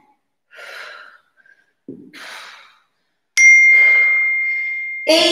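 A woman breathing hard from exertion, two short forceful exhalations, then a single bright ding: one clear tone that starts sharply a little past halfway and fades over under two seconds.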